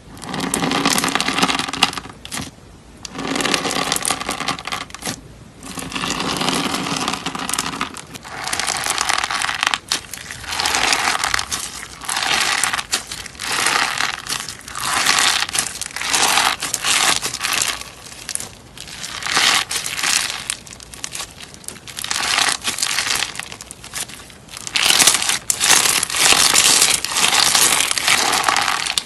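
Slime being squeezed and pressed, giving crackly, crinkling sounds in repeated pushes: a few longer ones at first, then about one a second.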